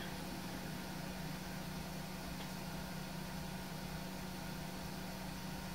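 Steady background room noise: a constant low hum with a faint hiss. No distinct clicks or scraping stand out.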